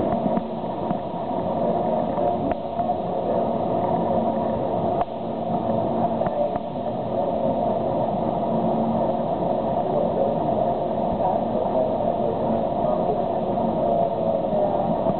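Aerial tram cabin running along its cables, heard from inside the cabin: a steady hum and noise, with a few faint clicks in the first half.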